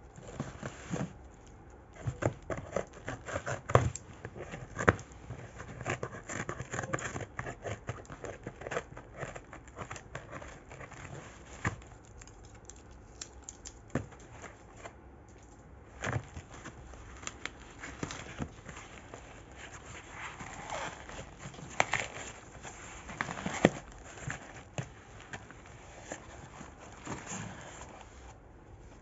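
Plastic packaging crinkling and rustling as water purifier candle filter cartridges are unwrapped and handled, with many sharp clicks and a few louder knocks.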